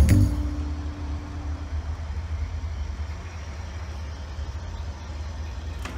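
Background music stops, leaving one held note that fades out over about two seconds, then a steady low rumble.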